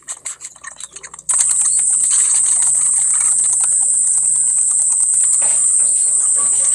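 A loud, steady, high-pitched insect drone starts suddenly a little over a second in and cuts off at the very end. Before it comes a run of light clicks and knocks.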